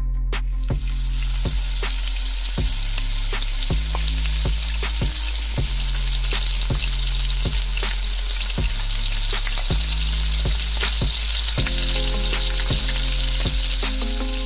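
Diced white onion hitting hot oil in a wok and sizzling steadily as it sautés, stirred with a slotted spatula. The sizzle starts a fraction of a second in, as the onion goes into the pan.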